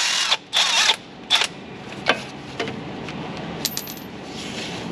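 Cordless electric ratchet running in short bursts as it backs out a crankshaft pulley bolt, two bursts in the first second and a brief one just after, then a few light clicks of tool handling.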